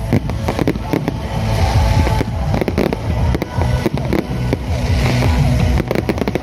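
Fireworks going off: a rapid string of bangs and crackles over a low rumble, with music playing underneath.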